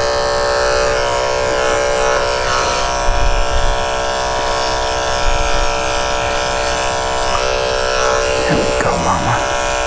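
Andis corded electric dog clipper running with a steady hum while its blade trims a puppy's belly fur in a sanitary clip.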